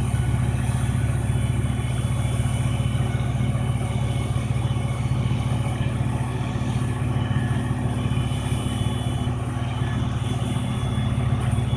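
Large wood chipper's engine running at a steady speed, a loud, even drone with no bursts of chipping.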